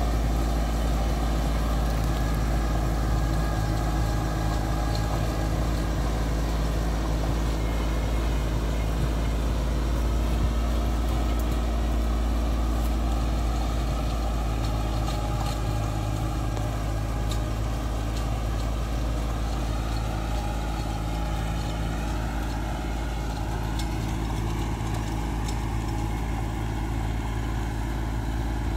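Tractor engine running steadily as it pulls a rotavator bed-maker through tilled soil, growing slightly quieter as the tractor moves away.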